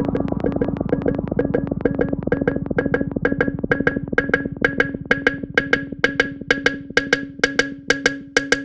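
Music: a song intro built on a fast, even percussive ticking pulse, wood-block-like in tone, over a held low note, with a noisy hazy texture fading out during the first few seconds.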